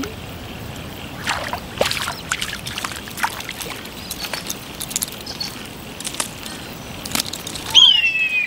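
Water sloshing and splashing in short, scattered strokes, with a bird's loud, long falling whistle near the end.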